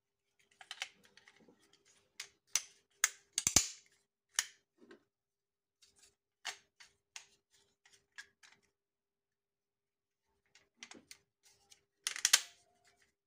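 Plastic modular switch and socket modules being pushed and snapped into a plastic switchboard frame: irregular clicks and knocks, loudest about three and a half seconds in and near the end, with a pause of about two seconds in the second half.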